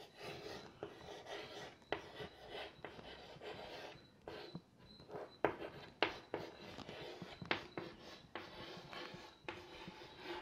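Chalk writing on a blackboard: faint scratching strokes broken by sharp little taps each time the chalk meets the board.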